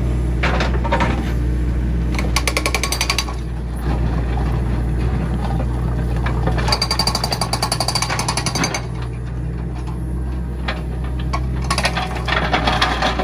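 Case 695ST backhoe loader's diesel engine running steadily, with three bursts of rapid, even hammering, each a second or two long.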